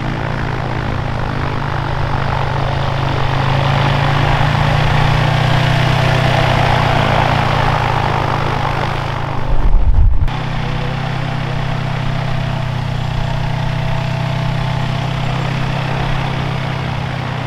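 A converted two-cylinder Polaris ATV engine drives a gyroplane's propeller, running steadily as the gyroplane taxis on grass, and grows a little louder as it passes. There is a brief loud low thump about ten seconds in.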